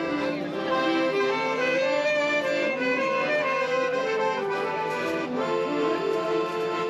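Instrumental music, a melody of held notes, that cuts off suddenly at the very end.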